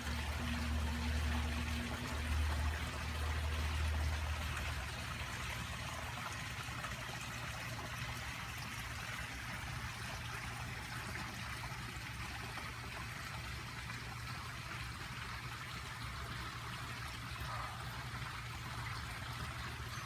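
Water from a backyard rock-garden waterfall running and trickling steadily over the rocks into its stream, with a low rumble in the first five seconds or so.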